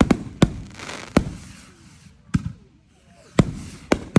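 Fireworks going off: a run of about seven sharp bangs at uneven intervals, with a crackling hiss trailing the first few.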